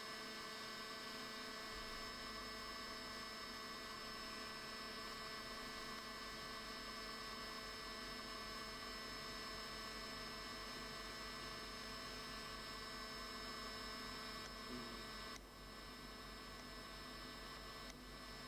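Steady electrical hum with several faint steady tones above it, dipping slightly in level about fifteen seconds in.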